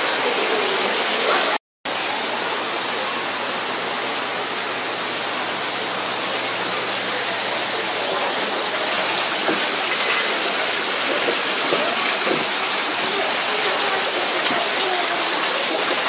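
Steady rush of falling and flowing water from a waterfall and stream, cut off to silence for a moment about two seconds in.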